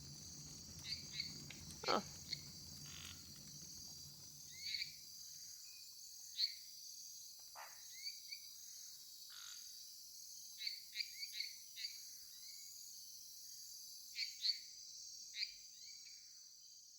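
Swamp ambience: a steady high chorus of insects with scattered short calls that slide down in pitch, and one longer call sliding down low about two seconds in. A low rumble underneath drops away about five and a half seconds in.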